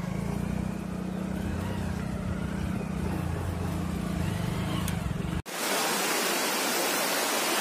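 A motorcycle engine running steadily at low revs. It cuts off abruptly about five and a half seconds in and gives way to a steady, even rushing hiss.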